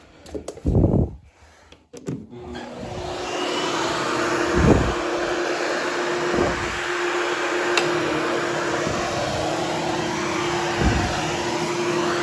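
Hoover HushTone vacuum cleaner switched on about two seconds in, winding up to a steady run with a constant hum as it grooms a freshly cleaned berber carpet. A few dull knocks come before it starts and a few while it runs.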